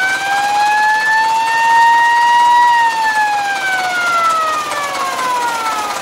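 Roof-mounted siren of a 1957 Csepel D352 fire engine sounding one long wail. Its pitch climbs, peaks about two and a half seconds in, then slides back down as the siren winds down.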